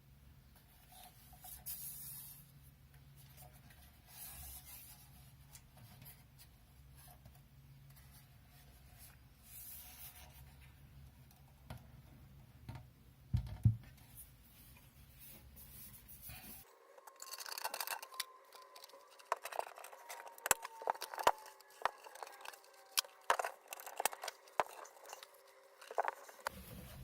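Hands working on the metal chassis and parts of a small NAS unit: faint scraping and rubbing, a single knock about halfway through, then a quick run of sharp clicks and scrapes in the last ten seconds.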